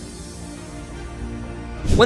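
Background music of sustained low tones, swelling a little louder near the end.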